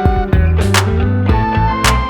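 Background music with a steady beat, a bass line and plucked guitar-like notes.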